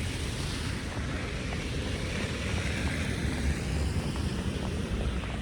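Wind rumbling against the microphone in a snowstorm: a steady low rumble under an even hiss.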